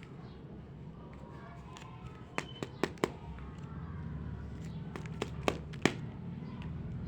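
Small plastic toy pieces clicking and tapping together as they are handled: a few sharp clicks about two and a half seconds in, then three more a little before the end, over a low steady hum.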